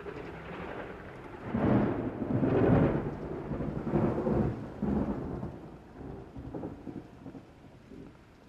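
A thunderclap and its rolling rumble: it grows about a second and a half in, comes in several heavy swells, and fades away near the end.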